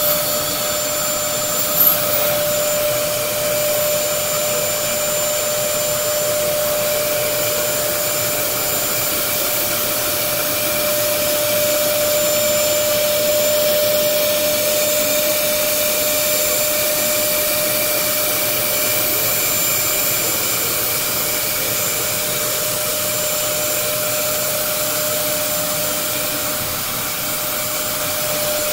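Upright vacuum cleaner running steadily: a constant rush of air with a steady whine from the motor, and a brief knock about two seconds in.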